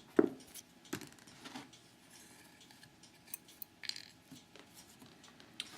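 Small metal clicks and clinks as an aluminium-bodied padlock and its parts are handled while it is being taken apart, with one sharp click about a quarter second in and a few fainter ticks after.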